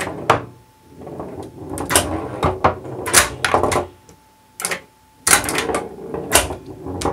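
Homemade pinball table in play: the solenoid-driven, 3D-printed flippers clack sharply each time they fire, some ten times in all, while a steel ball rolls and knocks across the chipboard playfield and strikes a scoring target. A faint steady hum sits beneath.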